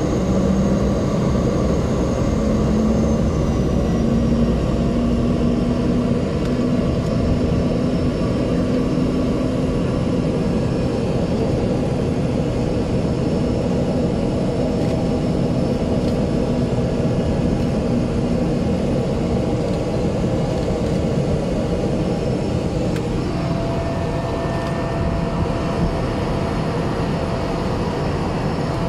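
Cessna 208B Grand Caravan's single PT6A turboprop engine and propeller running, heard from inside the cabin as a loud, steady drone. A low hum rises slightly in the first few seconds, and a higher whine joins about two-thirds of the way through.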